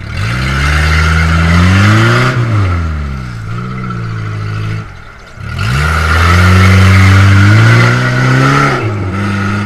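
1994 Suzuki Sidekick's 1.6-litre four-cylinder engine revving hard twice as it claws through deep mud, the pitch climbing and then falling each time, over a steady hiss of spinning tyres.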